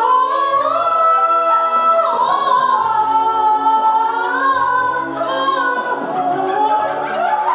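A man singing long, held high notes of a ballad into a microphone, amplified through a PA, with a backing track beneath.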